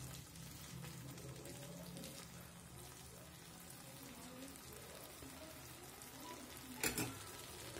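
Tomato-onion masala frying gently in a kadai as a steel spoon stirs it, a faint sizzle from masala cooked down until its oil is starting to separate. A single sharp click near the end stands out as the loudest sound.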